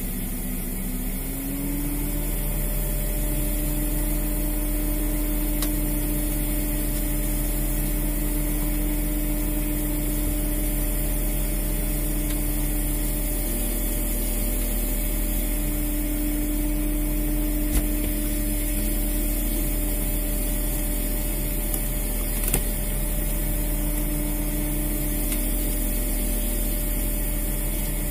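Boat engine running steadily, its pitch stepping up slightly about a second and a half in, with two short sharp knocks later on.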